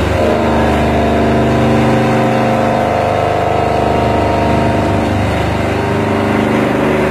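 CNC vertical machining center milling metal under flood coolant. The cutter gives off a steady pitched whine with several overtones over the hiss of the coolant spray.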